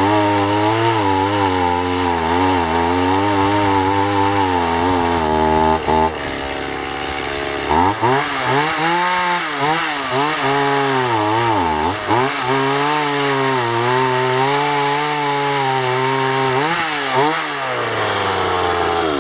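Chainsaw running and cutting wood, its engine pitch wavering and dipping again and again as the chain bites. About six seconds in it eases briefly, then revs higher and keeps cutting with deeper dips.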